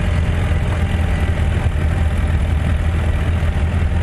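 Vehicle engine running steadily at low speed, a constant low hum with no revving.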